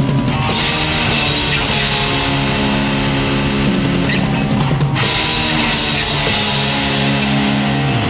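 Rock band playing live: electric guitars holding loud chords over a drum kit, with repeated cymbal crashes.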